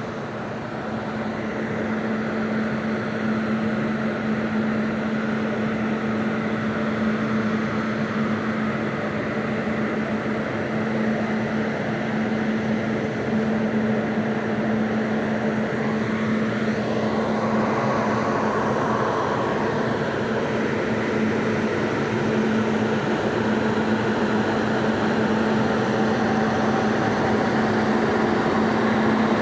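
Railway locomotive running steadily, a constant mechanical drone with a steady low hum, getting slightly louder over time.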